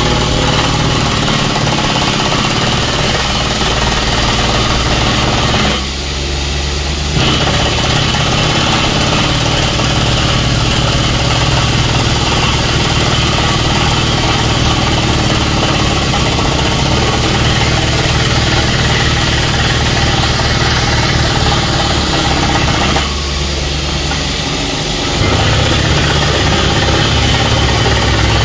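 Truck-mounted water well drilling rig running under test: its diesel engine runs steadily under a loud, even hiss from the rig's air system. Twice the hiss briefly drops away, about six seconds in and again near twenty-three seconds, while the engine keeps running.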